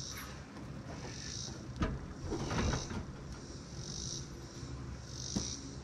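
Insects buzzing in regular pulses, a little over once a second. About two seconds in comes a clunk and rattle of metal as the new turbo intercooler is lifted into place at the truck's front end, with a smaller knock near the end.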